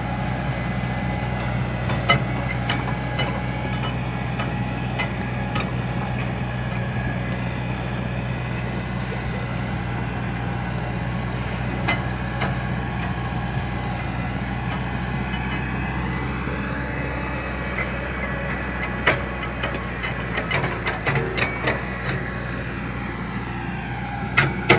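Excavator engine running steadily at a low hum, with scattered clicks and knocks that come more often near the end.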